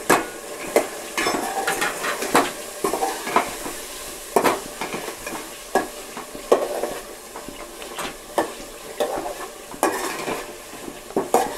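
A metal ladle scrapes and knocks irregularly against a metal cooking pot as chicken and spices are stirred, over the steady sizzle of the chicken frying in oil.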